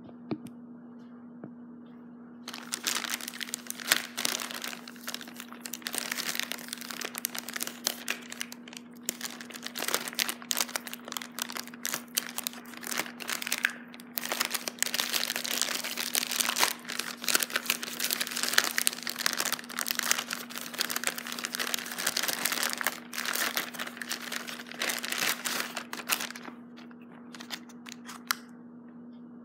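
Crinkly packaging wrap being handled and pulled apart by hand, a dense crackling and rustling that starts a couple of seconds in and dies down near the end. A steady low hum runs underneath.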